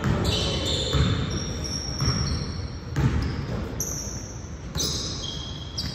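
Basketball dribbled on a gym floor, bouncing about once a second for the first few seconds, with several short high squeaks of sneakers on the court.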